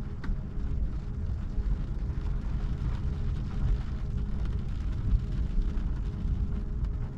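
A thunderstorm heard from inside a car: a steady, uneven low rumble of wind and storm against the car, with a faint steady hum under it and a single small click a moment in.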